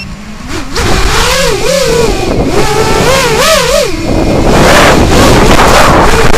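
Brushless MT2205 motors of a racing quadcopter spinning 5040 three-blade props, heard from the onboard camera: a whine that rises and falls in pitch with the throttle. From about four seconds in it turns into a steady loud rush of motor and wind noise as the quad flies.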